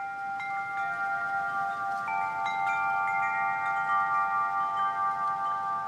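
Soft music intro of wind-chime-like tones, with notes struck one after another and left ringing so that they overlap. The sound swells in gradually.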